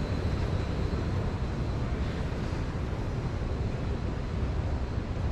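Steady low rumble of train station ambient noise, with no distinct events.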